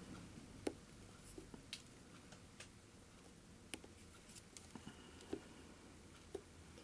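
Faint, scattered small clicks and ticks of hand work at a fly-tying vise while the spare lead wire is broken off the hook shank.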